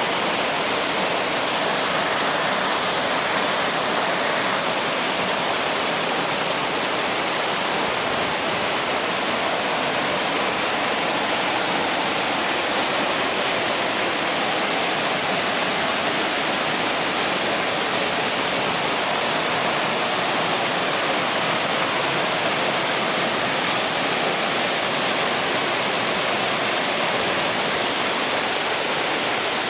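Waterfall, a steady loud rush of falling water that does not change in level, with its hiss weighted toward the higher pitches.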